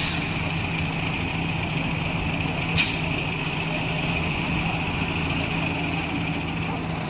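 Diesel farm tractor engine running steadily with a constant low hum. Two short hisses cut through it, one at the start and a sharper one about three seconds in.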